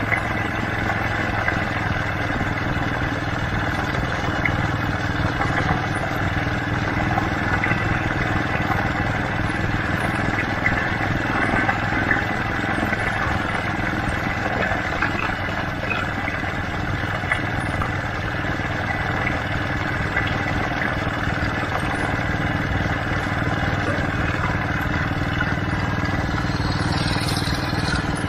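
A small vehicle's motor running steadily at an even speed as it rolls along a road and dirt track, with tyre and road noise.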